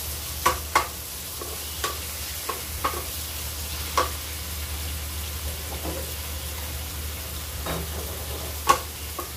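Wooden spatula stirring and scraping chopped tomato, garlic and onion as they sauté in a thin metal wok, over a steady frying sizzle. The spatula clacks against the pan now and then, a few sharp knocks, with the loudest near the end.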